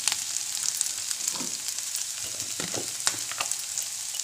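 Chopped capsicum, green peas and onion sizzling in oil in a pan: a steady high hiss with a few scattered faint clicks.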